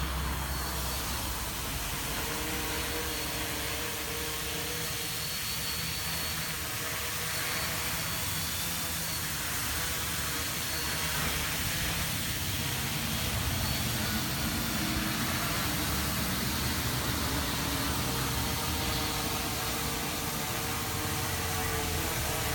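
Armed quadcopter's electric motors and propellers running steadily: an even whirring hiss with faint held tones.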